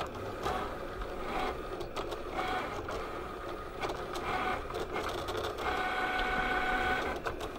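Cricut vinyl cutter's motors driving the blade carriage and mat while cutting vinyl: a whirring in short runs at shifting pitches, with one longer steady whine about two-thirds of the way in.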